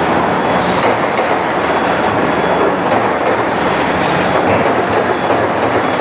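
Automatic sheet-metal punching machine running, a loud steady mechanical clatter with irregular sharp clicks.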